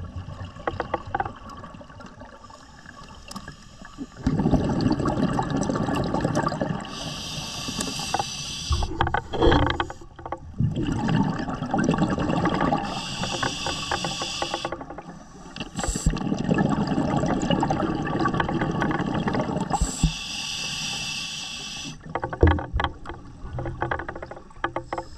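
Scuba diver breathing through a regulator underwater. There are three hissing inhales about six seconds apart, each followed by a few seconds of rumbling, bubbling exhale, with faint crackle between breaths.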